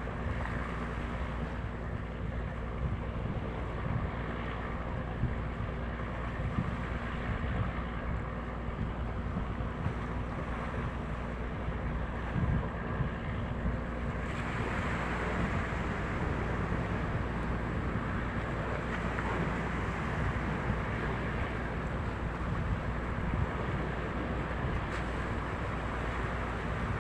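Boat engine running steadily at sea, a low continuous rumble with wind buffeting the microphone and water noise; the hiss grows brighter about halfway through.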